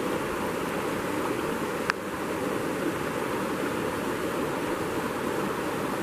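A small stream running over rocks, a steady wash of water, with one short click about two seconds in.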